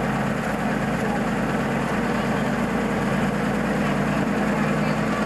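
Engine of an old US Army armoured scout car idling steadily.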